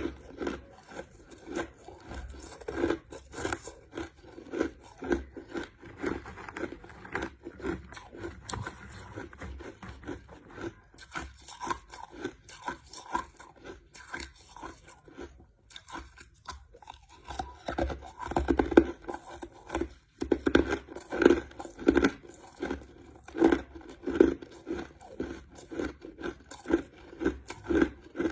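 A person chewing crushed ice, with rapid repeated crunches. The crunches are softer for a stretch in the middle and grow louder again about two-thirds of the way through.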